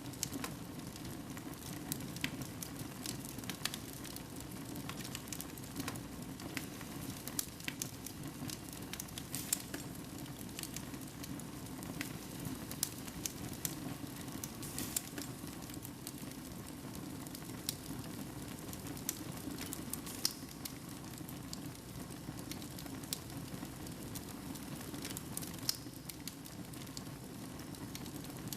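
Wood fire burning in a fireplace: a steady low rush of flames with frequent sharp, irregular crackles and pops.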